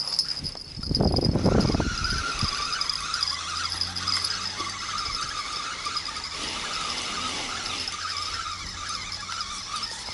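Fishing reel being cranked steadily, a whirring whine that does not change in pitch, as a hooked crucian carp is reeled in. A loud rumbling bump comes about a second in.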